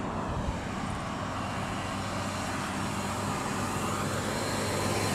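Steady traffic noise from vehicles running along a highway, with a low engine hum, swelling slightly near the end.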